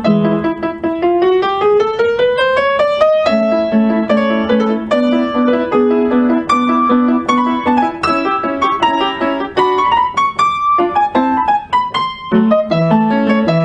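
Background piano music: a run of notes climbing in pitch over the first three seconds, then a busy melody of quick, evenly struck notes.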